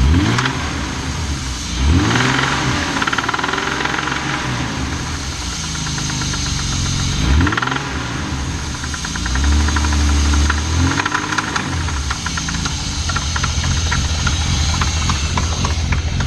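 BMW M50 straight-six engine running and revved up and back down several times, with a loud rattling, knocking noise over the engine note.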